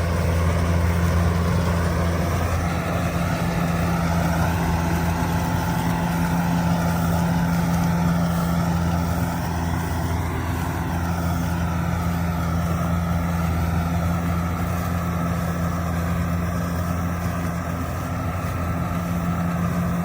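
Kubota DC70G Plus combine harvester running steadily, its diesel engine a constant low drone.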